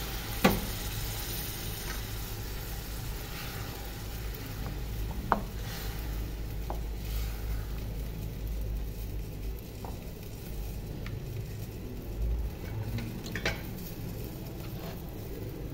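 Mutton curry in a metal pot sizzling on the stove after stock has been poured in, while a wooden spoon stirs it. A few sharp knocks of the spoon against the pot, the loudest about half a second in.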